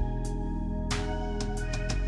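Background music: sustained chords with occasional drum hits.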